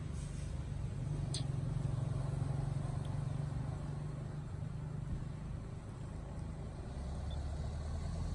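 A low, steady mechanical hum, with a single sharp click about a second and a half in.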